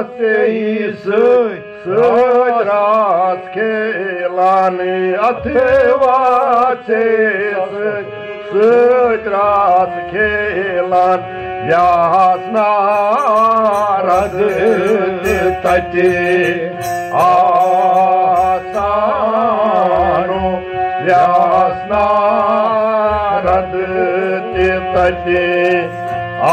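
Kashmiri devotional song: a melody that slides and wavers in pitch over a steady drone, with a hand drum beating underneath.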